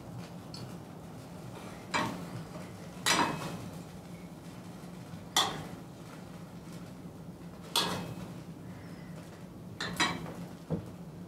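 A metal spoon knocking and clinking against a dish. There are six sharp clinks, irregularly spaced about one to two and a half seconds apart.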